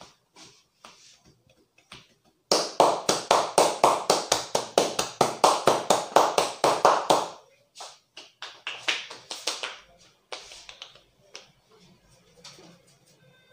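Hands striking a man's head in a head massage: a quick, even run of slaps, about five a second for nearly five seconds, then a few slower, scattered taps.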